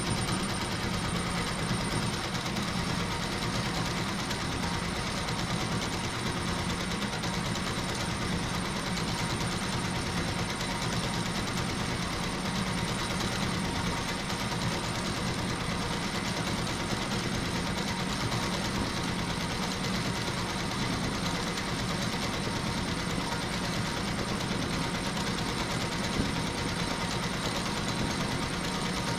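HSW twelve-needle high-speed embroidery machine running steadily while stitching: an even, fast mechanical rattle that holds constant throughout.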